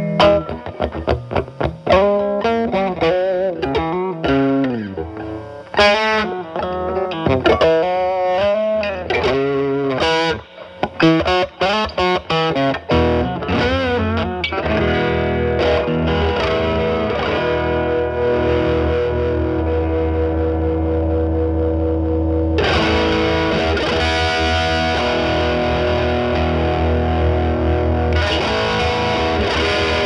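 Telecaster electric guitar with single-coil pickups, played through a Moollon compressor pedal set as a gain boost into a Marshall Valvestate amp's drive channel, giving a lightly overdriven tone. Single-note lead lines with string bends and vibrato give way, about thirteen seconds in, to long sustained ringing notes and chords, which turn brighter near the last third.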